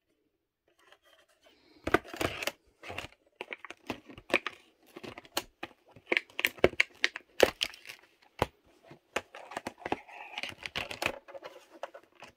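A plastic VHS clamshell case and cassette being handled: an irregular run of clicks, snaps and crinkling plastic that starts about a second in.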